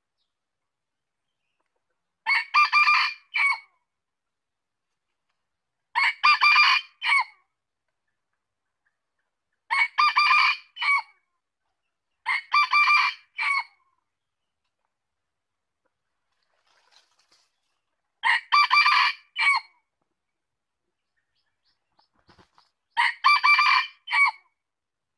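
Male red junglefowl crowing six times, each crow short and about a second and a half long, ending in a clipped final note, with a few seconds of silence between crows.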